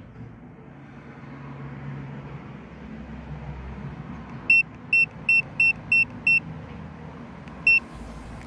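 Seven short high-pitched electronic beeps: six in quick succession about a third of a second apart, then one more a little over a second later. These are the key-press beeps of an Ancel VD700 OBD scan tool while its service-reset menu is being stepped through. A low steady rumble runs underneath.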